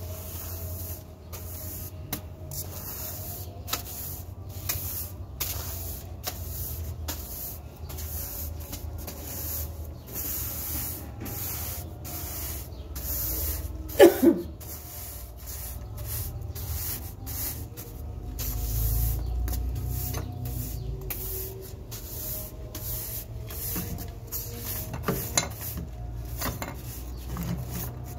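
Bristle broom sweeping fine sand dust across a tiled floor in quick, repeated hissing strokes, about one to two a second. About halfway through, a brief falling squeal stands out above the sweeping.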